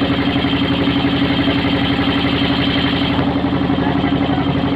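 Motorboat engine running steadily at constant speed, an even, fast-pulsing drone.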